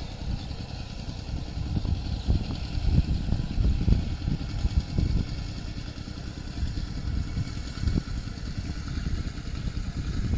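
Wind buffeting the microphone: a gusty low rumble that swells and drops unevenly.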